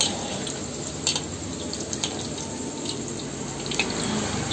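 Chicken momos frying in hot oil in a black iron wok, a steady sizzle, with a few sharp clicks of the steel slotted spatula against the wok.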